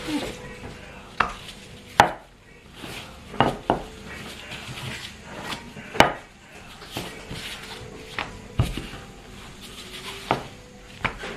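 Wooden rolling pin rolling out dough on a plastic cutting board: a soft rubbing sound broken by about eight sharp, irregular knocks of wood on the board.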